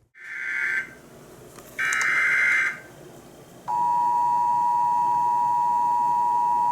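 Emergency Alert System alert opening: two short, shrill bursts of SAME header data tones about a second apart, then a steady single-pitch attention tone begins near the middle and holds. It announces an incoming weather warning.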